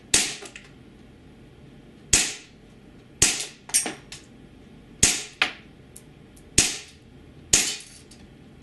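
WE Knight Hawk full-metal 1911 gas blowback airsoft pistol firing on green gas: a string of single sharp shots, roughly one a second, each with a short tail.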